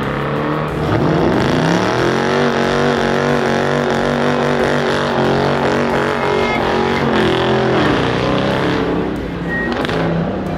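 Car engine rising in pitch as it accelerates, held at steady high revs for several seconds, then easing off near the end.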